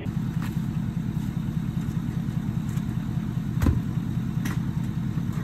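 A lifted pickup truck's engine running with a steady, pulsing low rumble, with a few light clicks over it.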